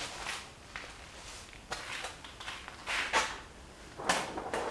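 Irregular rustling and scuffing handling noises, about four short bursts, from a person moving close to the microphone in a camouflage jacket.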